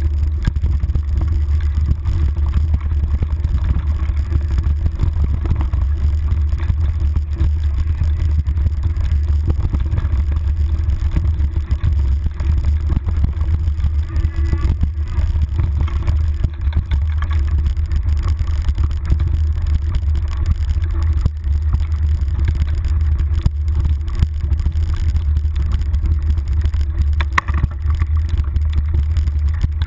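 Mountain bike rolling fast downhill on a dirt trail, heard through a handlebar-mounted action camera: a loud, steady low rumble of wind and vibration with constant small rattles and knocks from the bumpy ground, and a sharper knock near the end.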